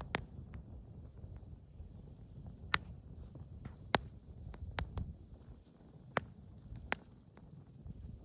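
Wood fire burning in a fire bowl: a low, steady rumble of flames with scattered sharp crackles and pops, the loudest about three and four seconds in.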